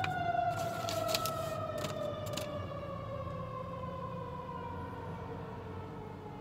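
Fire truck siren: one long wail that slowly falls in pitch and fades as it winds down, heard from inside a car.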